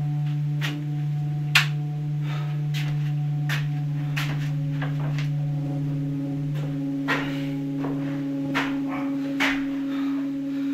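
Horror-film sound design: a steady low humming drone with a second tone above it, over scattered sharp clicks and knocks, the loudest about a second and a half in.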